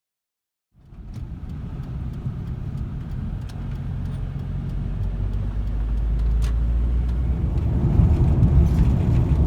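A motor vehicle running, its steady low engine and road rumble starting suddenly about a second in and growing louder.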